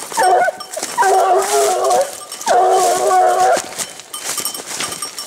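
Hunting hound baying on a wild boar's scent: a short cry, then two long, drawn-out bays of about a second each. This is a scent hound giving tongue as it works the trail.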